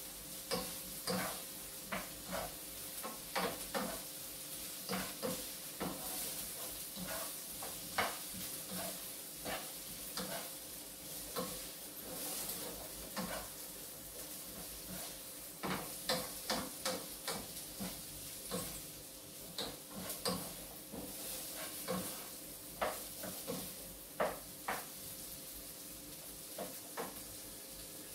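Green beans and sausage sizzling in a frying pan as they are stirred, with a steady hiss and frequent irregular clinks and scrapes of the utensil against the pan.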